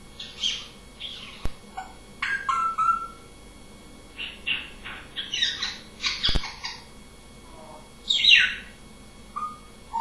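African grey parrot chirping, whistling and squawking in short bursts, with a louder call about eight seconds in that slides downward in pitch. Two sharp clicks or knocks come in between the calls.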